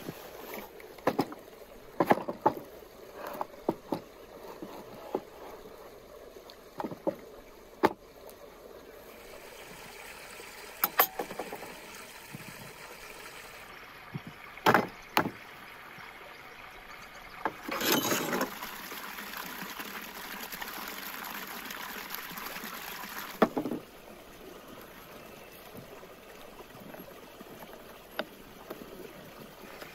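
Kitchen preparation sounds: scattered knocks and clinks of utensils and dishes, with water rushing from a tap for about five seconds past the middle, stopping abruptly.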